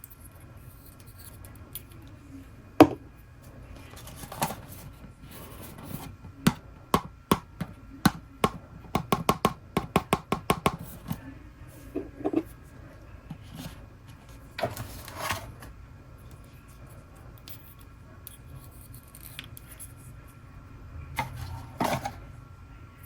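Hands opening and handling blind-box toy packaging: scattered taps, scratches and rustles, with a quick run of clicks from about six to eleven seconds in.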